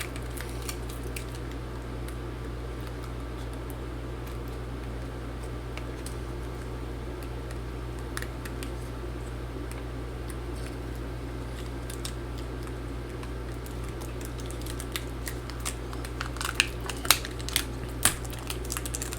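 Steady low hum with light clicks and taps of a laptop battery and small parts being handled on a workbench, the clicks coming more often in the last few seconds.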